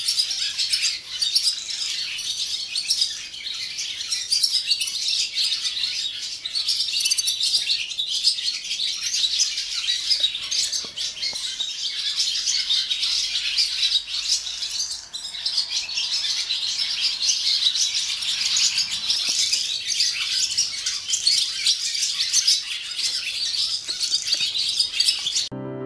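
Barn swallows singing their morning song: many birds twittering and chattering at once in a dense, unbroken stream of fast chirps, cutting off abruptly at the very end.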